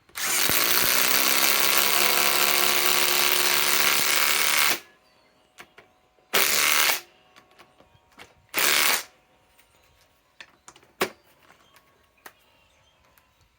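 Ryobi PSBIW25 compact impact wrench hammering a 5/16 by 3 inch galvanized lag screw into wood with no pilot hole: one long run of about four and a half seconds, then two short bursts.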